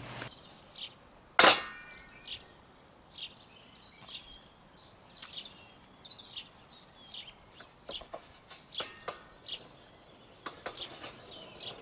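Small birds chirping, a scatter of short, high calls, with one sharp knock about a second and a half in and a few faint clicks near the end.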